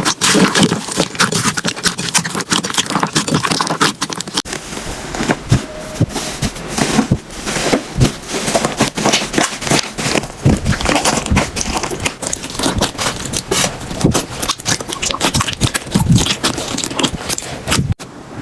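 Slime being squished and pressed, giving a dense run of fast crackling and popping clicks mixed with scraping. There is a brief break near the end.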